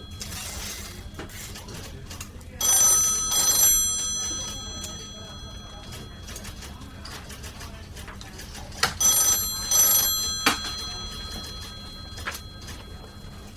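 A bell ringing in a repeating pattern of double rings, each ring made of several steady high tones. Two double rings are heard, about six seconds apart.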